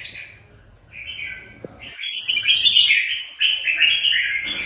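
Red-whiskered bulbul singing: a short phrase about a second in, then a longer, louder run of song from about two seconds in.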